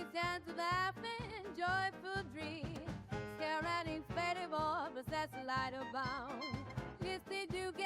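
Background music: a song with a sung melody, some notes held and wavering, over instruments with a steady beat.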